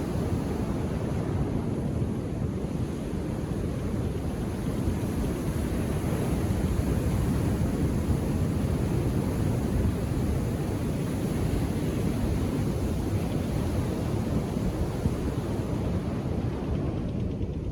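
Indian Ocean surf breaking and washing on a beach, a steady low rush.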